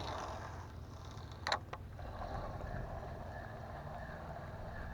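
Faint steady outdoor noise around a small fishing boat on open water, with two short sharp clicks about a second and a half in.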